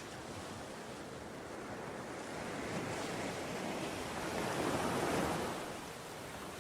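Ocean waves breaking and washing in, a steady surf wash that swells to a louder crest a little before the end and then eases off.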